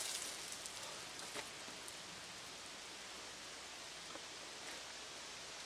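Water dripping and trickling off a drenched man onto the grass after a pot of water has been dumped over him; the tail of the splash fades right at the start, leaving a faint steady patter and hiss.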